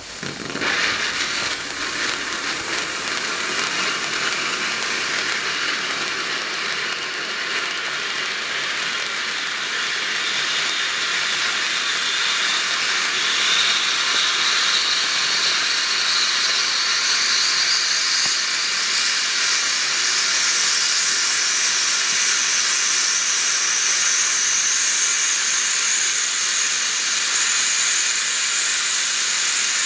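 Blackboxx Feuerkegel No. 2 silver cone fountain firework catching from its fuse about half a second in, then spraying sparks with a steady loud hiss. A thin high whistle inside the hiss rises slowly in pitch through the second half.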